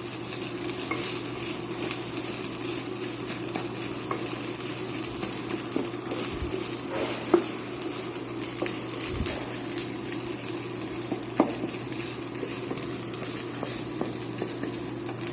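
Rice frying in hot olive oil, sizzling steadily, as a utensil stirs and breaks it up in the pan, with a few sharp clicks of the utensil against the pan.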